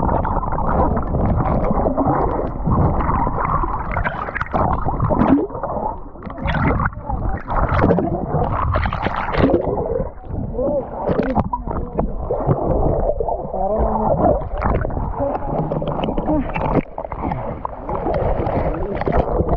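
Sea water gurgling and sloshing around a camera held in the water, muffled as if heard under water, with irregular splashes.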